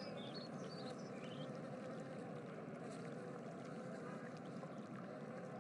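Faint steady background ambience: an even hiss, with a few faint high chirps in the first second or so.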